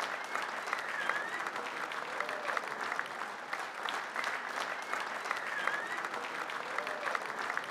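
An audience applauding: many hands clapping in a steady, even stream.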